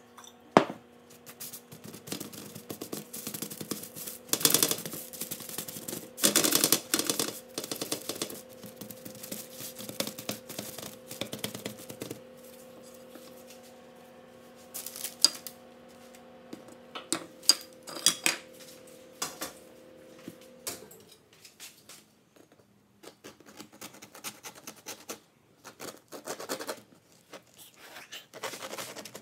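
Kitchen handling sounds: clinks, knocks and scrapes of a glass oil bottle and a metal baking tray, rustling of paper, and near the end a knife cutting through a bread bun on a wooden cutting board. A steady low hum runs underneath and stops about two-thirds of the way through.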